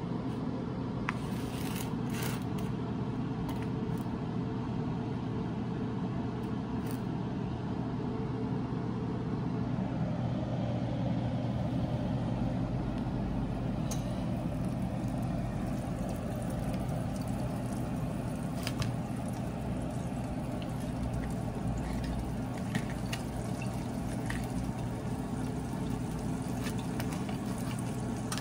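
Squid rings deep-frying in a saucepan of hot oil: a steady bubbling sizzle over a low steady hum, with a few faint clicks.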